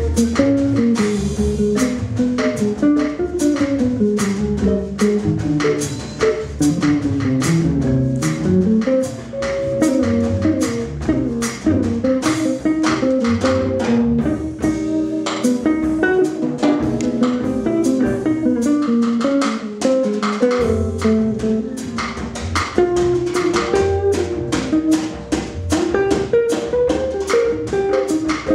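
Small jazz combo playing live: a guitar melody over upright bass and a drum kit keeping a steady swing of cymbal strokes.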